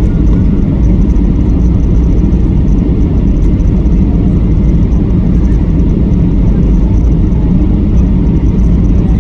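Steady low rumble inside the cabin of a Boeing 737-800 on approach to land: its CFM56 engines and the airflow over the airframe.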